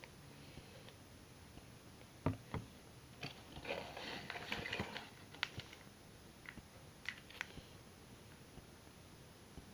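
Hair dye kit parts being handled: two sharp knocks about two seconds in, then about two seconds of crinkling and rustling from a plastic-and-foil packet, then a few light clicks and taps.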